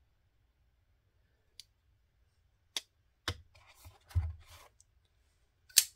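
Sparse sharp clicks and light scraping of a folding knife being handled and pushed into a foam slot of a hard carrying case, with a soft thud a little after four seconds and a sharp click near the end.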